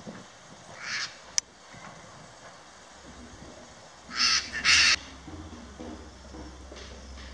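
A bird's harsh, raspy calls: one short call about a second in, then two louder ones in quick succession about four seconds in.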